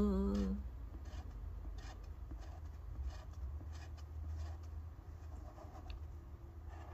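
A held sung note ends about half a second in, then faint, irregular scratchy strokes of writing on the scripture board.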